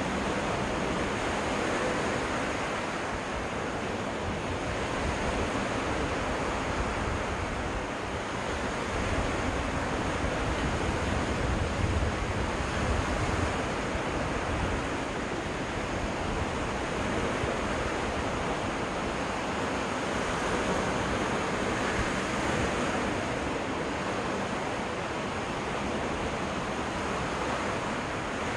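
Waves breaking and washing onto a freshwater lake beach: a steady rush that swells and eases. Wind rumbles on the microphone, strongest around the middle.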